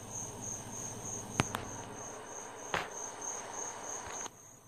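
Crickets chirping: a steady, high pulsing trill repeating a few times a second, with a couple of faint clicks.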